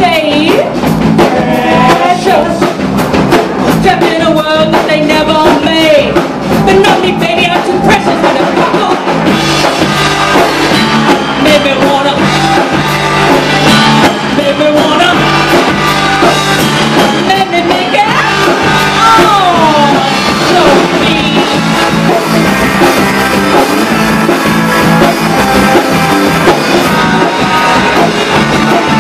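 Live rock band playing loud: a woman singing lead over two electric guitars, an electric bass and a Ludwig drum kit.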